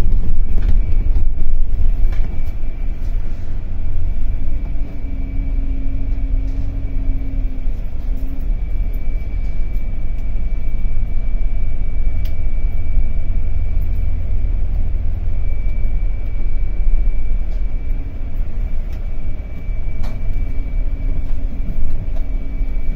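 Cabin noise inside a double-decker intercity coach on the move: a steady, heavy low rumble of engine and road, with a faint steady high whine over it.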